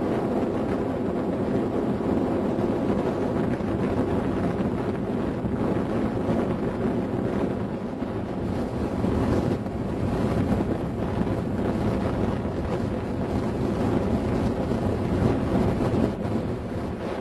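Wind blowing across the microphone: a loud, steady rushing noise with small swells and dips.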